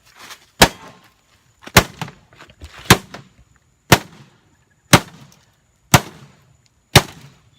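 A hatchet striking a TV set in hard, sharp blows, seven of them about a second apart, each with a short ring.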